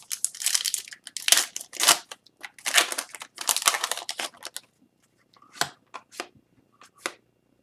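Trading cards and pack wrapping being handled up close: a run of short paper and plastic rustles and scrapes for about four and a half seconds, then a few light clicks.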